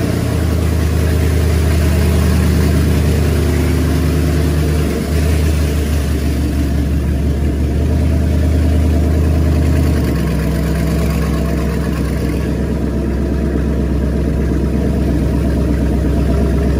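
Chevrolet 5.3-litre LS V8 idling just after start-up with both exhaust manifolds removed, so the exhaust blows straight out of the cylinder-head ports with no pipes or mufflers. It is loud and raw, heard from inside the cab, and the idle settles slightly lower about ten seconds in.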